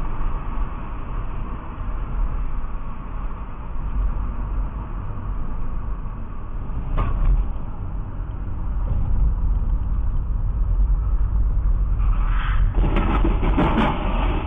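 Steady road and engine rumble inside a moving car, picked up by a dashcam, with a brief knock about halfway through. Near the end comes a loud, noisy crash of a vehicle collision.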